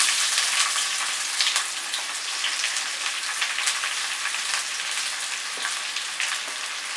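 Sliced red onions sizzling and crackling as they drop into hot sesame oil in an iron kadai. The sizzle is loudest as they first hit the oil and eases a little as they are stirred with a wooden spatula.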